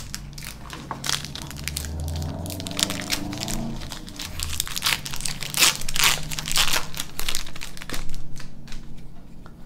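A Magic: The Gathering booster pack's plastic wrapper crinkling and tearing as it is opened by hand: a dense run of crackles, loudest in the second half, thinning out near the end.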